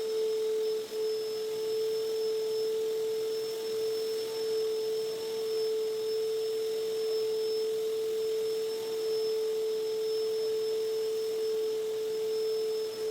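Vacuum cleaner running: a steady whining hum over a light hiss, dipping briefly about a second in and again near the end.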